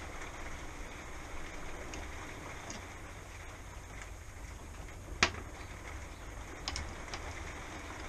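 An Allen key loosening the bottom bolts of a RockShox Recon Silver RL suspension fork's lower legs. Mostly quiet hiss, with one sharp click about five seconds in and a couple of faint clicks a little later.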